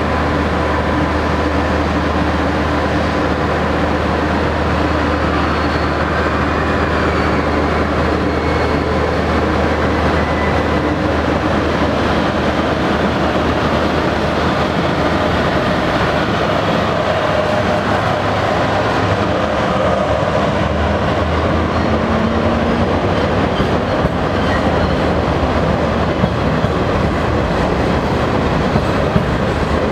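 Renfe AVE high-speed train pulling slowly out of the station, its carriages rolling past with a steady rumble and hum. A low drone weakens about halfway through, and a few light clicks from the wheels come near the end.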